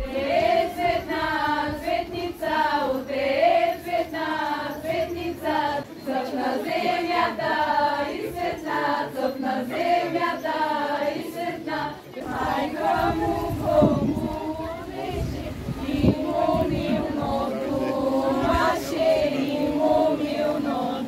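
Group of girls and young women singing a Bulgarian lazarki ritual song together in folk style. About twelve seconds in, the sound changes to a live outdoor recording of the group singing, with low rumble and crowd noise beneath the voices.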